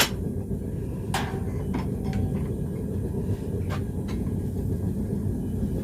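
Steady low rumble of a forge running, with several sharp clinks of a steel link against metal: one at the start, then a few more about a second in and near four seconds.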